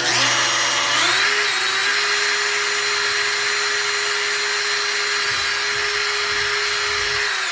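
Power drill running a 1/4-inch bit through a cabinet door to make the knob's screw hole. The motor whine rises in pitch about a second in, holds steady, and stops suddenly at the end.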